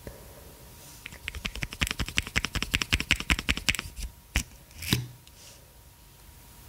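Rapid fingernail tapping and clicking on plastic makeup packaging, about ten quick taps a second for roughly three seconds. A couple of separate clicks follow as a mascara wand is drawn from its tube.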